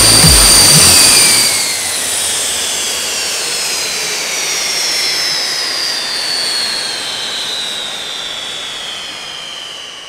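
Jet engine's high turbine whine winding down, its pitch falling slowly as it fades away. Music with a heavy beat cuts off about a second and a half in.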